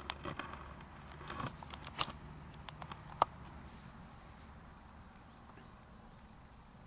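Several sharp clicks and knocks of a handheld camera being moved and set down, bunched in the first three seconds or so, then faint steady background noise.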